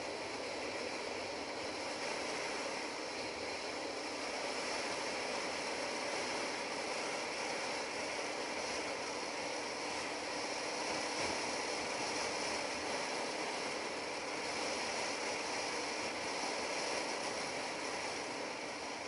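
Motorcycle cruising steadily on a paved highway: a continuous rush of wind over the camera mixed with engine and tyre noise.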